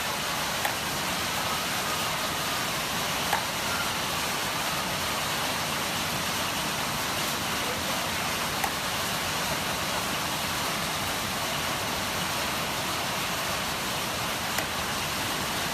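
Chicken legs frying in hot oil: a steady sizzle with a few sharp pops from spattering oil, cutting off suddenly at the end.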